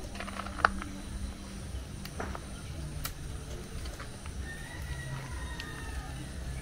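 Hands handling fish in an aluminium pot, giving scattered clicks and knocks against the metal, with one sharp click about half a second in.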